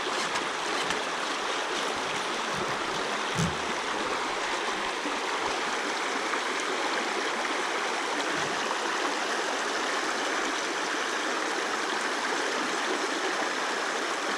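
Mountain stream flowing: a steady rush of water, with one soft low thump about three seconds in.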